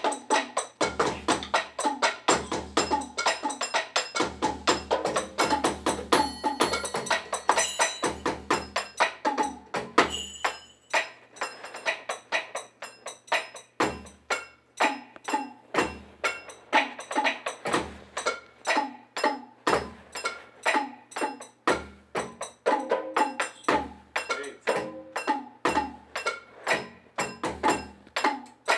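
Electronic drum kit played by two drummers at once, an adult and a small child, in a loose jam. A fast, uneven stream of stick hits on the pads, with low kick-drum thuds recurring every second or two.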